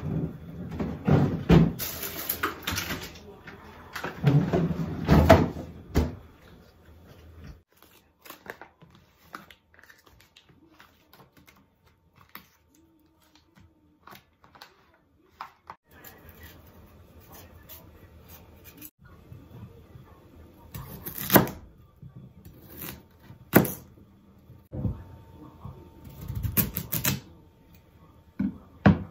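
Kitchen handling sounds: a refrigerator being opened and closed with thuds and knocks at first, then scattered clicks of items set on the counter. Near the end, a kitchen knife knocks through a carrot onto a plastic cutting board.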